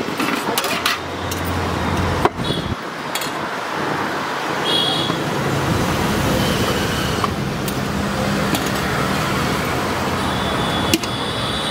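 Street traffic: a steady road noise of passing vehicles with a low engine hum, short horn toots around the middle and near the end, and a couple of sharp knocks.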